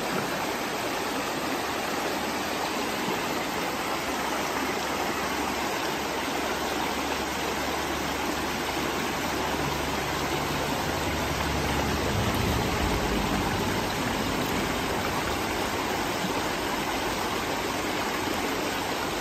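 Shallow rocky creek rushing and splashing over stones in a small cascade: a steady rushing noise.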